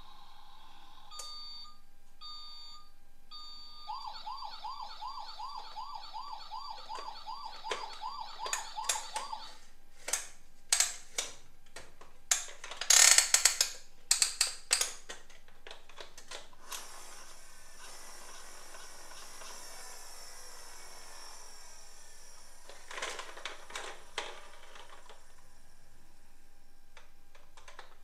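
Electronic siren from a battery-powered toy emergency vehicle: a steady tone, a few beeps, then a fast warbling siren about three wobbles a second for several seconds. Then hard plastic toys clatter and knock against each other in a cardboard box, loudest about halfway through, with another short burst of clattering near the end.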